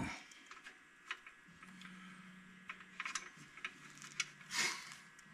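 Faint, scattered small metal clicks and taps as a Jeep Grand Cherokee Trackhawk's rear wheel hub bearing assembly is handled and worked into place on the knuckle, with a short breath-like hiss near the end.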